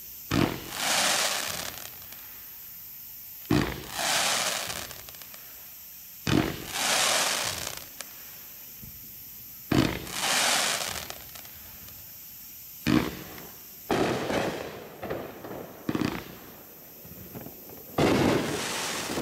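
A 32-shot consumer fireworks cake firing its shots one after another. Each shot is a sharp report followed by about a second of hiss from the glitter burst. The shots come about every three seconds, then faster and overlapping from about two-thirds of the way in.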